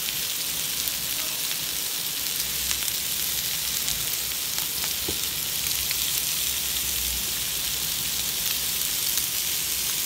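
Cut-up marinated chicken breast frying in a non-stick pan: a steady sizzling hiss with scattered small pops and crackles.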